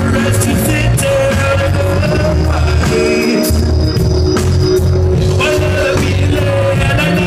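Live rock band playing loud: a singer over electric guitars and a heavy bass line, heard from within a concert crowd. The lowest notes drop out briefly about three seconds in.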